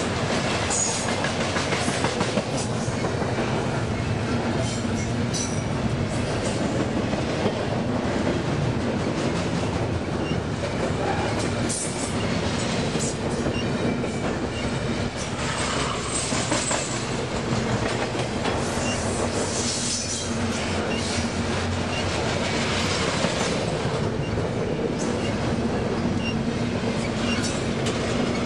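A BNSF double-stack container freight train's cars rolling steadily past: a continuous rumble and clatter of steel wheels on the rails, with occasional high wheel squeals.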